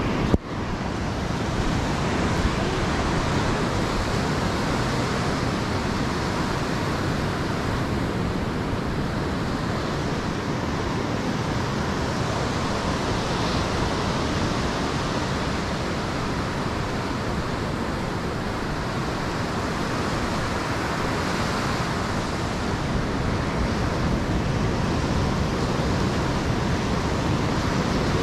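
Steady rushing noise of ocean surf and wind, with a short click and dip just after the start.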